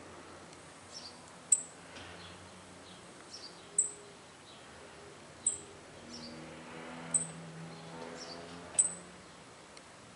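A bird calling: five sharp, high chirps about two seconds apart, each with a fainter falling note just before it.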